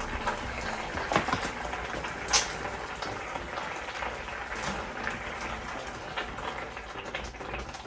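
Pot of beef birria bubbling on the stove, a steady bubbling hiss with scattered small pops.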